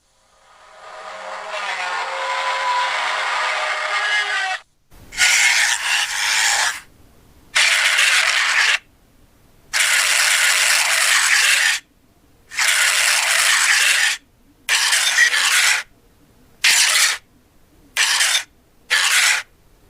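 Designed alien spider creature sound effects: a layered, pitched sound swells in and holds for about four seconds, then a series of eight harsh, noisy hisses separated by short silences, the later ones shorter.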